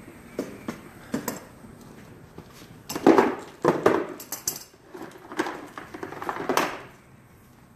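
Hard metal objects being handled and rummaged through: a few sharp clicks first, then two longer bouts of clattering and clinking. The engine is not running.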